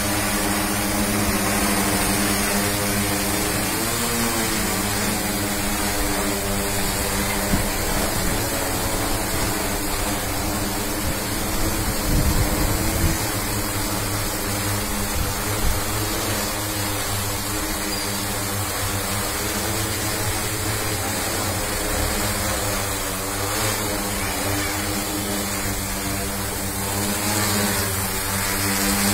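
Multirotor agricultural spraying drone hovering close by: its electric motors and propellers give a steady buzzing hum of several pitches, which waver briefly as the motors adjust about four seconds in. Short low rumbles come through around twelve seconds in.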